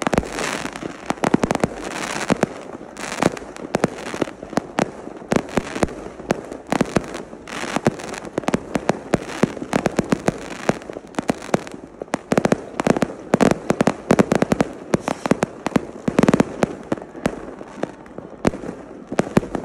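Fireworks going off overhead: a dense, irregular barrage of sharp bangs and crackles, the reports overlapping with no break.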